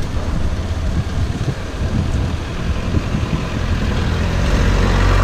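Motorcycle engine running at low speed over a rough muddy road, among the engines of a jammed line of buses and jeeps. A steadier, louder low engine hum builds near the end.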